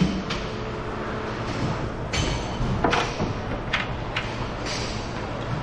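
Hockey play: several sharp clacks and knocks of sticks, puck and boards, about eight in a few seconds, over the rink's steady background noise. The loudest knock comes right at the start.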